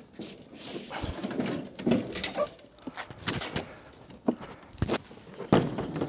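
Window air conditioner chassis being slid out of its sheet-metal casing and lifted clear: a string of knocks and clunks with scraping and rubbing between them.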